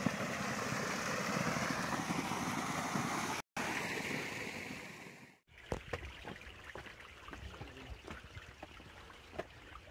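Water rushing and splashing down a drop in a concrete falaj irrigation channel, a steady hiss that drops out for a moment and then fades. Past the middle it gives way to a much quieter background with scattered light taps.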